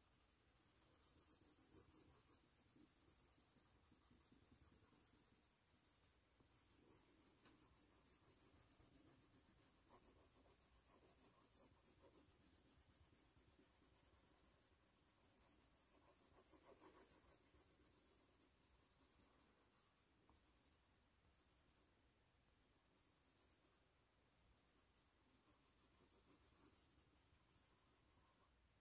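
Faint scratching of a wax crayon rubbed on paper in quick back-and-forth strokes, colouring in, with a few short pauses.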